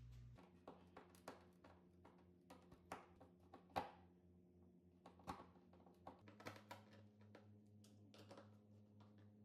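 Faint scattered light clicks and taps of cabinet door hinges being handled and fitted, the loudest about four seconds in.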